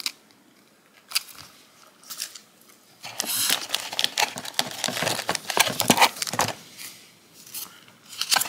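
Clear plastic packaging of nail art sticker sheets crinkling and rustling as it is handled: a few separate light clicks at first, then dense crinkling from about three seconds in that dies down about six and a half seconds in.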